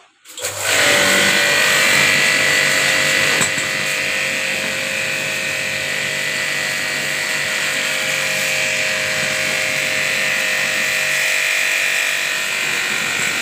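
Pressure washer running and spraying a water jet onto a motorcycle's front fork tubes. It starts about half a second in and then holds a steady motor whine under a hiss of water.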